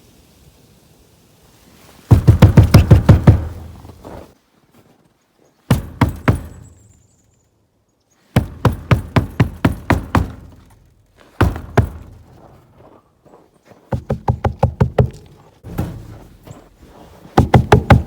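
Rapid knocking in repeated bursts, about eight sharp knocks a second, seven bursts with short pauses between.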